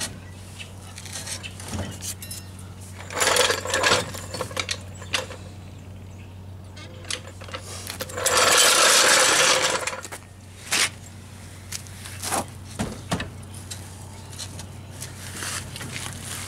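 Metal clanks, clicks and knocks from hand work on a Jeep Wrangler YJ's rear axle sitting on a floor jack, with a loud rough noise lasting about two seconds near the middle, over a steady low hum.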